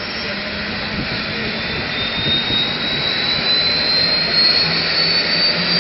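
Air ambulance helicopter's turbine engine spooling up, a high whine rising steadily in pitch over a growing rush of noise as the engine is started before takeoff.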